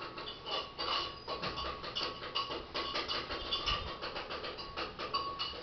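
Quick, irregular small clicks and light taps, several a second, over a faint steady high tone.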